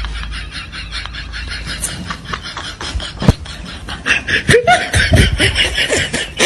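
Laughter: someone laughing in quick, repeated bursts, growing louder near the end.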